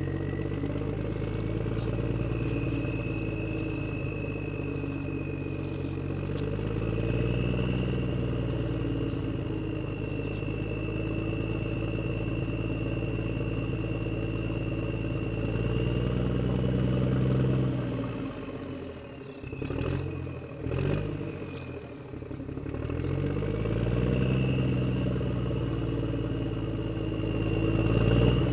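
Small motor of a toy vehicle running, its hum rising and falling in pitch with a thin high whine above it; about two-thirds in it briefly eases off, with a few clicks, before picking up again.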